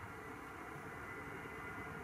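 Learjet 35A's twin turbofan engines heard from afar as a faint, steady jet noise with a thin whine in it.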